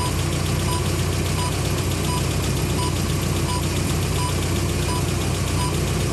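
Radio-telemetry receiver beeping, a short steady tone about every 0.7 s, as it picks up the pulses of the falcon's tracking transmitter. Under it is the steady hum of the tracking truck's engine running.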